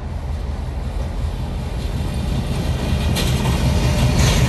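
FGC class 353 diesel locomotive hauling a container freight train, its engine running with a low rumble that grows louder as it approaches and draws level. Near the end a few sharp clicks from the wheels over the track come in as the locomotive passes.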